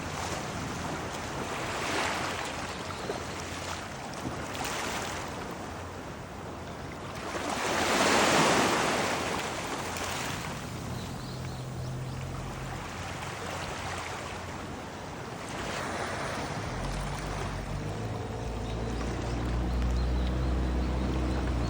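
Sea waves washing in, swelling and ebbing every few seconds, with some wind on the microphone. About three-quarters of the way through, a low steady engine hum starts and continues.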